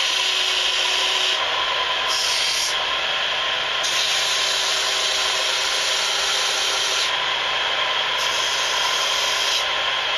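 Small bench power sander running steadily while a flute block is held against it to grind a large bevel. The rasp of the block on the abrasive swells and eases several times as it is pressed on and let off.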